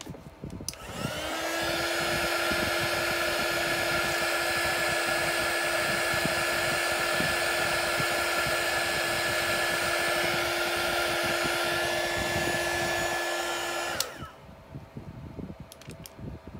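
A hand-held electric hot-air blower is switched on about a second in. Its motor spins up to a steady hum over a rush of air as it blows across wet poured paint, then cuts off sharply near the end.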